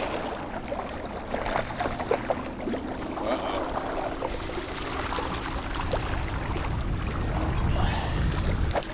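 Wind rumbling on the microphone, with scattered light clicks and taps.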